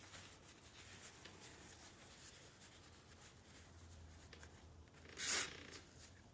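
A short aerosol spray of white lithium grease, a single half-second hiss about five seconds in, preceded by faint handling rustles.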